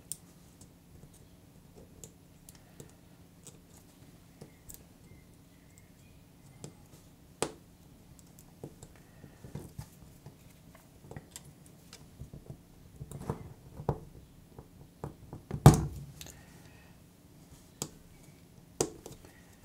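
Scattered small clicks and taps of hand work inside a Samsung Galaxy A52s as its flex-cable connectors are pressed onto the sub-board, with one louder click about three quarters of the way through.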